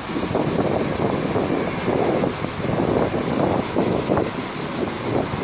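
An SBB fire-fighting and rescue train's diesel engine runs as the train rolls slowly past. The noise rises and falls in uneven surges about twice a second.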